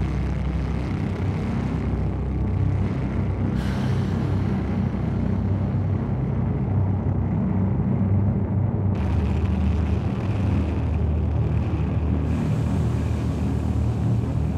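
Dark ambient outro music: a dense, steady low rumble with a hiss layer above it that cuts in and out abruptly a few times.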